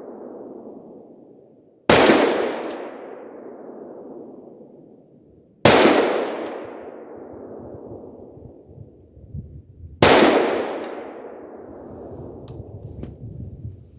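An 11.5-inch-barrel AR-15 firing .223 rounds: three single shots about four seconds apart. Each sharp crack is followed by a long echo that fades over a few seconds. A few faint clicks come near the end.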